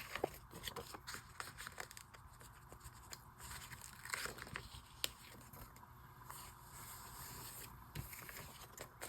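Faint rustling, peeling and light taps of paper stickers being lifted from their sheet and pressed onto journal pages.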